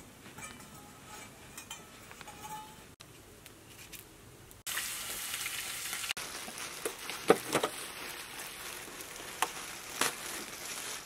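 Diced onions sizzling in oil in a frying pan over hot coals, with a few sharp taps and scrapes of a utensil stirring them. The sizzle comes in loudly about halfway through, after a quieter start.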